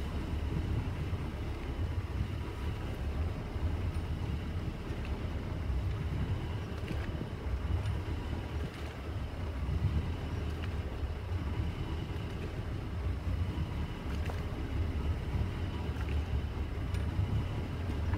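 Wind buffeting the microphone as a steady, uneven low rumble, with water washing past the hull of a sailboat under way and a few faint ticks.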